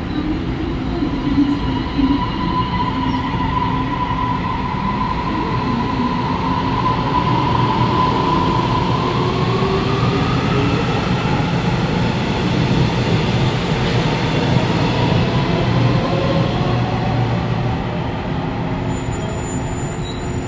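Taiwan Railway EMU500-series electric multiple unit pulling out of an enclosed station. A steady whine from its traction motors and inverter starts rising in pitch about eight seconds in as the train picks up speed, over the rumble of its wheels on the track.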